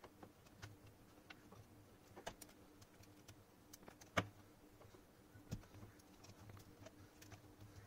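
Faint scattered clicks and taps of a laptop battery being worked loose at its connector and lifted out of its bay, the loudest about four seconds in.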